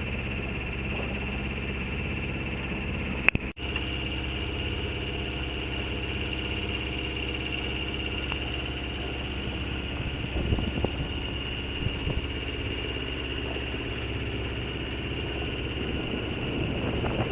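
Sailboat's engine running steadily with an even low hum. A sharp click comes a little over three seconds in.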